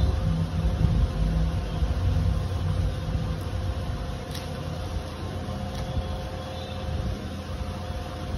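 Steady low background rumble with a faint steady hum, easing off slightly, and a few faint clicks as a small paper and cardboard box insert is handled.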